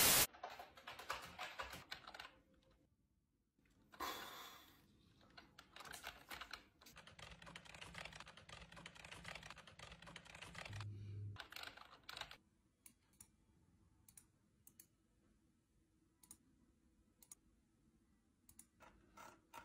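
Typing on a computer keyboard in quick runs of key clicks, dense for the first twelve seconds or so, then only a few separate clicks. A brief hiss of static at the very start.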